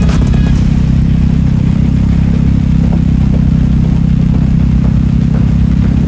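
Hammerhead go-kart's GY6 150 single-cylinder four-stroke engine running steadily as the kart is driven along.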